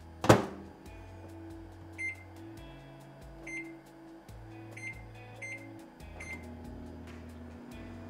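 GE turntable microwave oven: the door shuts with a single loud knock, then about five short keypad beeps as the cooking time is entered, with background music underneath.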